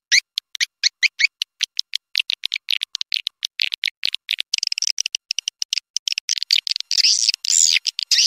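Swiftlet call track, a recording of swiftlet twittering played to lure swiftlets into a nest house. It starts with rapid, evenly repeated high chirps, about five a second, and about halfway through turns into denser overlapping twittering with rising-and-falling chirps.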